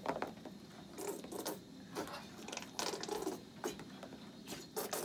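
A plastic mustard squeeze bottle being squeezed over someone's head, giving irregular clicks, crackles and sputters.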